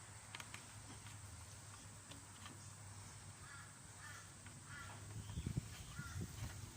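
Crows cawing a few times in the background over a low steady hum, with a few soft knocks of handling about five seconds in.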